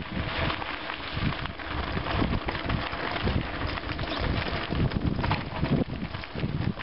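Mountain bike rolling fast down a gravel track: wind buffeting the microphone over a steady rumble of tyres on loose gravel, broken by frequent knocks and rattles from the bike.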